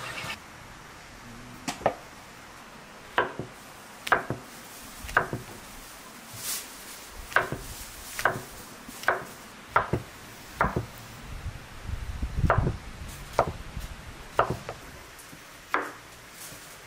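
Kitchen knife slicing button mushrooms, the blade knocking through onto a wooden cutting board about once a second in an uneven rhythm. A short low rumble comes about two-thirds of the way through.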